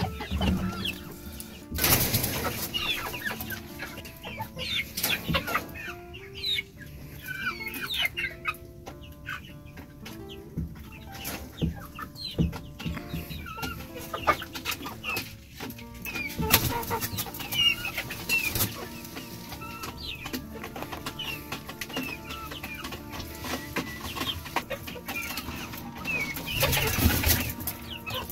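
A flock of hens and young chickens clucking and chirping in quick, short calls, over soft background music. A few brief louder noises stand out, about two seconds in and near the end.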